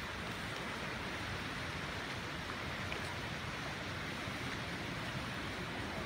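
Steady hiss of broken ice floes and slush drifting on the Glomma river, with a few faint ticks of ice, over a low wind rumble on the microphone.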